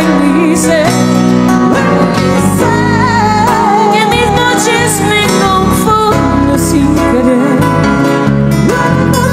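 Live acoustic band playing an instrumental interlude of a slow ballad: acoustic guitars under a sustained, wavering lead melody line, with no lead vocal.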